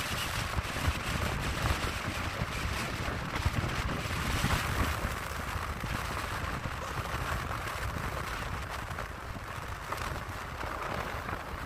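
Wind buffeting the microphone in uneven gusts over a steady rush of ocean surf, the wind and waves driven by a hurricane passing offshore.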